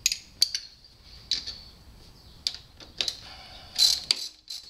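Hand wrench clicking and clinking on a motorcycle's rear brake caliper bolts as they are snugged up: a string of sharp, irregular metallic clicks with a short ring. The loudest is a longer rasp about four seconds in.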